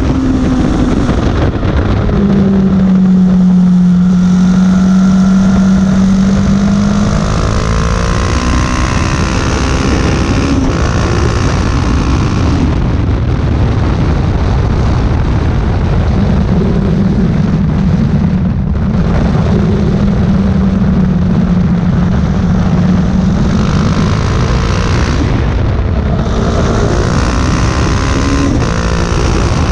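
KTM 690 Duke's single-cylinder engine running hard at road speed under heavy wind and road noise. The engine holds a steady note for several seconds at a time, with a few brief dips in the sound.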